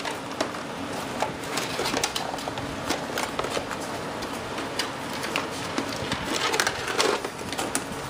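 Handling noise: scattered clicks, taps and rustling as hands pull at wires and parts inside a model jet's fuselage.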